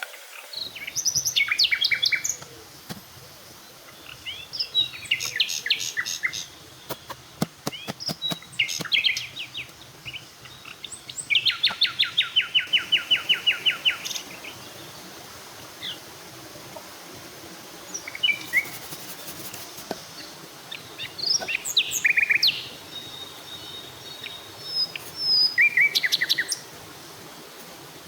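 Wild birds singing in short bursts of quick, high, repeated notes, with one longer even trill of rapid notes midway, over a steady background hum of forest ambience.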